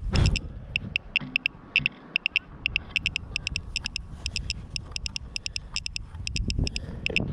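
Rapid, fairly regular high clicking, several clicks a second, over a low wind rumble that gusts sharply at the start and again near the end. A faint steady whine comes from a small quadcopter drone hovering close overhead.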